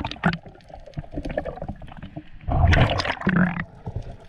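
Water gurgling and rushing around an underwater camera, with scattered clicks and knocks. A louder burst of rushing water comes about two and a half seconds in and lasts about a second.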